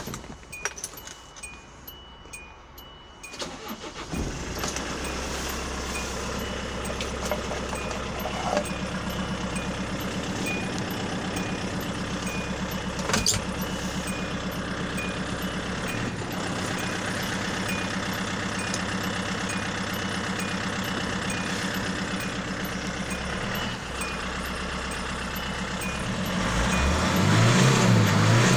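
Kia Bongo III truck's diesel engine starting at the turn of the key about four seconds in, then idling steadily. Near the end it is revved to about 3000 rpm, its pitch rising and falling.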